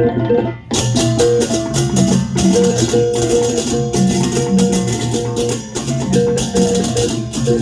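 Balaganjur, the Balinese processional gamelan, playing at full volume: bronze gong-chimes repeat an interlocking melody over deep gong and drum strokes. About a second in, the clashing hand cymbals come in with rapid, driving strikes.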